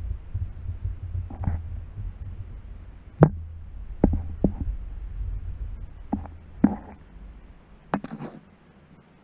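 A camera being lowered down a stone air shaft, bumping against the rock walls: about six sharp knocks over a low rumble that stops near the end.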